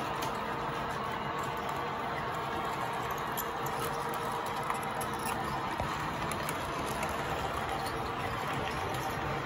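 American Flyer S gauge freight cars rolling past on the track: a steady rolling noise of wheels on rail with a few faint clicks.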